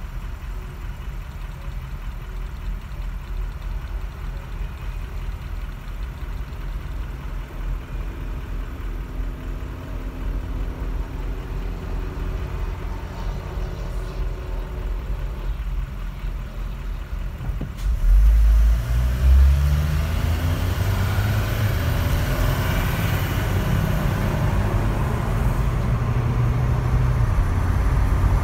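Car engine idling while stopped, heard from inside the cabin. About eighteen seconds in it pulls away and accelerates, its pitch rising, and road and wind noise build as the car gathers speed.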